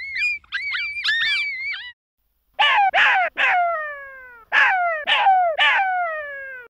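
Jackal calling: a quick run of high, bouncing yips, then six loud yelps in two sets of three, each sliding down in pitch. The calls stop suddenly near the end.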